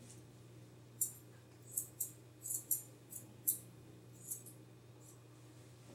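Grooming scissors snipping a dog's facial hair: about nine short, quick snips at uneven intervals, starting about a second in.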